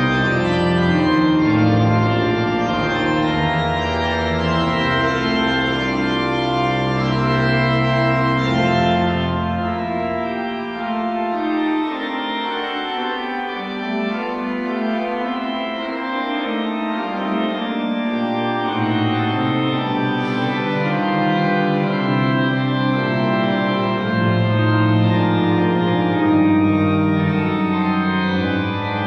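Church organ playing a fugue, several sustained voices moving together. The low pedal bass drops out for several seconds around the middle and then comes back in.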